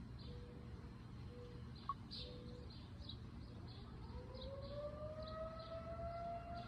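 Outdoor tornado warning siren starting up about four seconds in, its pitch rising steadily as it winds up; this is the routine weekly siren test. Birds chirp repeatedly throughout.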